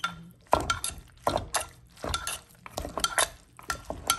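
A metal spoon and wooden pestle knocking and scraping against a clay mortar as rice noodles are tossed in their dressing, in a quick irregular run of knocks and clinks.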